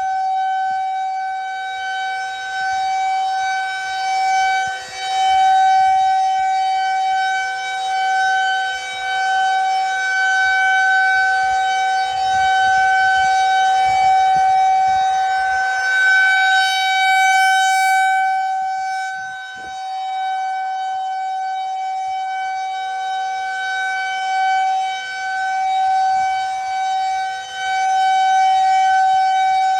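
Federal Signal 2001 rotating outdoor warning siren sounding a steady single tone. The pitch stays the same while the volume swells and fades every several seconds as the rotating head sweeps toward and away from the listener.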